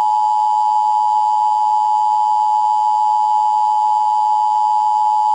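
Emergency alert attention signal: a loud, steady two-pitch tone just under 1 kHz, held without a break. This is the EAS-style 853 and 960 Hz alert tone.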